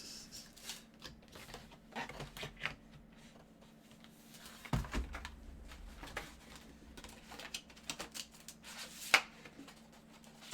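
Cards and packaging being handled: scattered rustling and light clicking, with a dull thump about five seconds in and a sharp click near the end.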